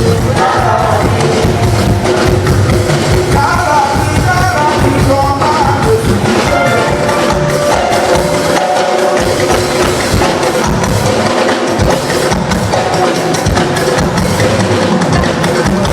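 Live church music with drums and percussion keeping a steady beat, with singing over it.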